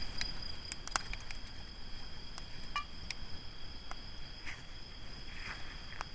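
Crickets singing in a steady high trill, with scattered sharp crackles and pops from a wood campfire.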